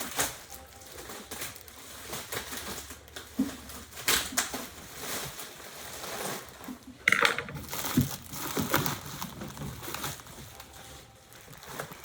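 Printer packaging being pulled apart by hand: irregular crinkling and crunching with scattered knocks, loudest in a sharp rustle about seven seconds in.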